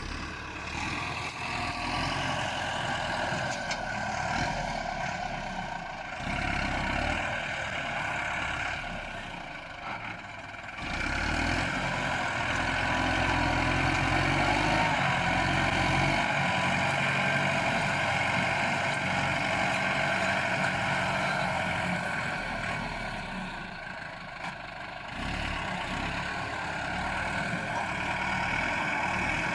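Bulldozer's diesel engine working steadily as it pushes earth, its level rising and falling with the load: it eases off briefly twice and runs louder through the middle.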